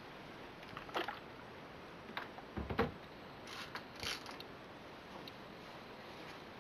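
Quiet handling sounds of a clothes iron and a shirt on an ironing board. A few light clicks and a low thump as the iron is lifted off and set aside, then shirt fabric rustling as it is lifted and folded back.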